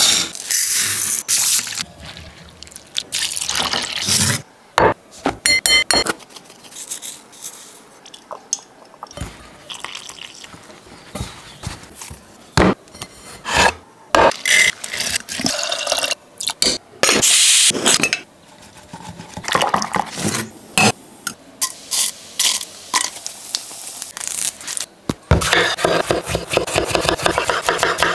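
Hand food preparation in a kitchen: water handling, rubbing and scraping with scattered knocks, then a fast, even run of short strokes near the end.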